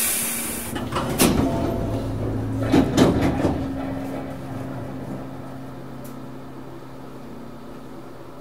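Hankyu 6300 series train stopped at a station: a short, loud hiss of released air, then the sliding doors working with several clunks over the next few seconds, leaving a steady low hum from the car's equipment.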